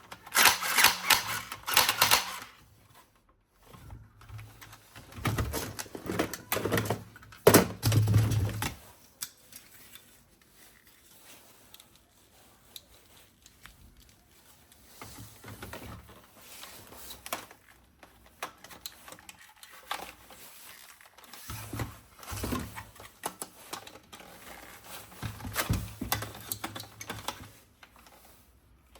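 Rapid clicking and rattling from objects handled up close, in bursts. Loudest in the first two seconds and again from about five to nine seconds in, then quieter and more scattered.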